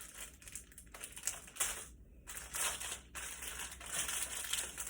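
Plastic packaging crinkling and crackling in irregular bursts as it is handled and tugged at, being struggled open.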